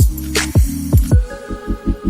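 Electronic background music: deep kick-drum beats over a held low synth chord, changing a little past a second in to a fast, even pulsing bass with steady high tones above it.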